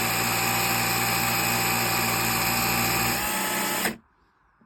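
Bosch GSR 12V cordless drill's replacement motor running at full speed with a steady whine while its housing is squeezed together. The owner says this pressure makes the motor slow down and smoke, a sign that something inside is rubbing or binding. The pitch rises a little just before the motor cuts off suddenly about four seconds in.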